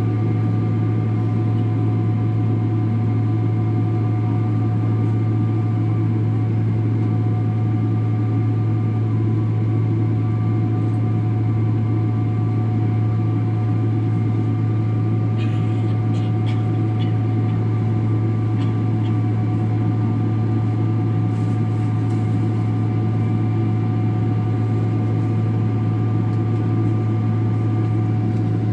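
Steady droning hum inside the cabin of a Boeing 777-300 airliner, with several steady whining tones above it. A few faint clicks are heard in the middle.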